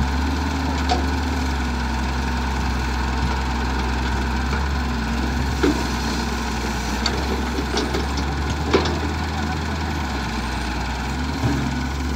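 Diesel engines of a wheeled excavator and a Massey Ferguson tractor running steadily. A few short sharp knocks stand out: about a second in, near the middle and about two thirds through.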